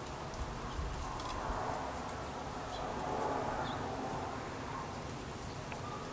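Outdoor rural ambience: a soft rushing hiss swells and fades in the middle, with a few short, faint bird chirps.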